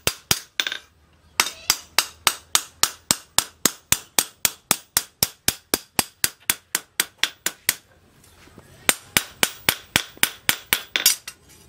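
Hand hammer forging a steel cleaver blade on a post anvil, with sharp metallic blows at about four a second. The hammering stops briefly twice, about a second in and again around eight seconds in.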